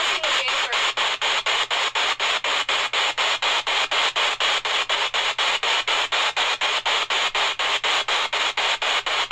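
Ghost-hunting spirit box sweeping through radio stations: loud hissing static chopped into short bursts about five times a second.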